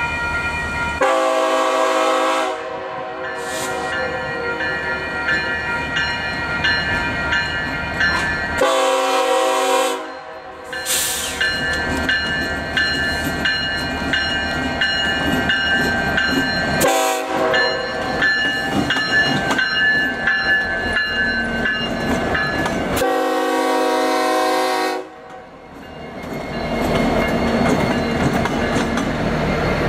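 Norfolk Southern SD70ACE diesel locomotive sounding its air horn in the long, long, short, long grade-crossing pattern as it approaches. The locomotive's engine and wheels rumble louder as it passes close by near the end.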